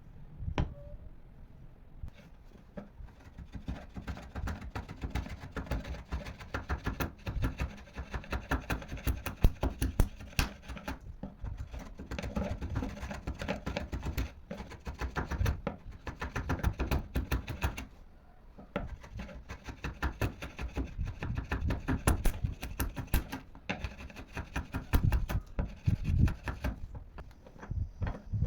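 Hand-tool work on wood: a fast, uneven run of clicks and scrapes, with a short pause about two-thirds of the way through.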